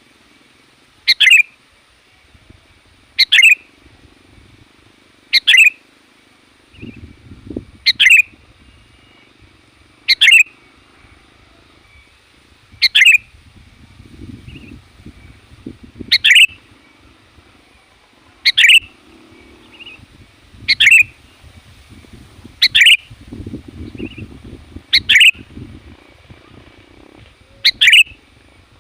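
Sooty-headed bulbul (kutilang) calling: one short, loud, sharply rising call repeated about every two to three seconds, twelve times.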